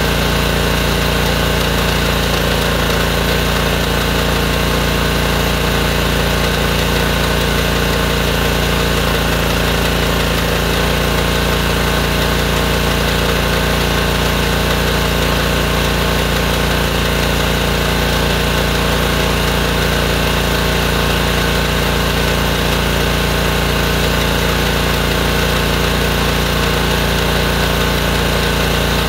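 Honda engine of a DeWalt gas pressure washer running steadily, driving the pump of a drain hydro jetter.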